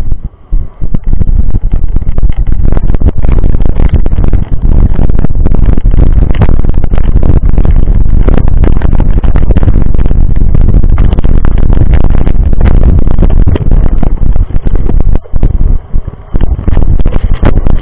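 Heavy wind buffeting on the microphone of a bike-mounted camera during a mountain-bike descent: a loud, distorted low rumble with frequent knocks and rattles from the rough trail, briefly easing a few times near the end.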